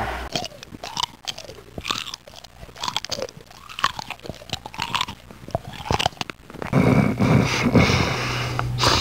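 A beagle's mouth noises after being woken from deep sleep: a run of wet clicking lip-smacks and licks with short squeaky sounds. About seven seconds in, a louder, rough noise takes over.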